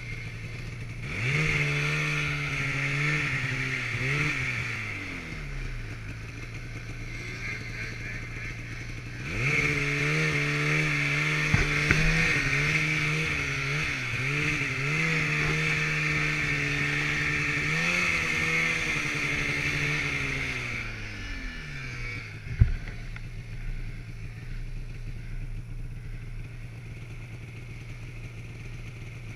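Snowmobile engine running under throttle in two long pulls, one from about a second in and a longer one from about nine seconds in. Its pitch rises and falls with the throttle. It then drops back to a low steady running hum. A single sharp thump comes a little after the second pull ends.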